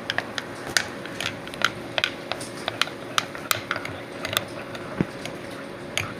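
Spoon stirring hot chocolate in a mug, clinking against the sides in sharp, irregular clicks, a couple per second.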